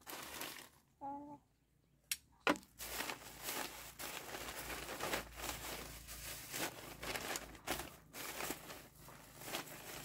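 Plastic bag crinkling and rustling as it is handled: a sharp click about two and a half seconds in, then a dense run of crackles.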